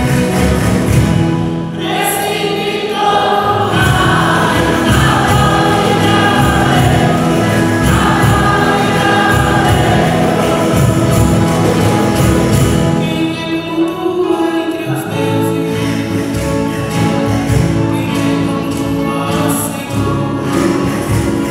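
A woman sings a church song into a microphone, accompanying herself on a classical guitar, with the sound carried through the church's PA.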